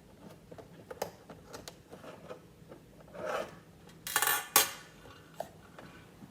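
Plastic clicks and knocks as a capsule is put back into a build-it-yourself toy capsule vending machine. There is a short scrape about three seconds in, then two loud clattering rattles a little after four seconds.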